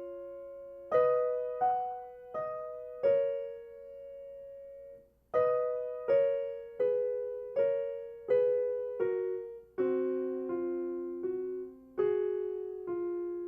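Piano-voiced keyboard playing the alto and soprano choir parts together as a slow melody in two-note harmony. Each struck note rings and fades, and there is a brief break about five seconds in.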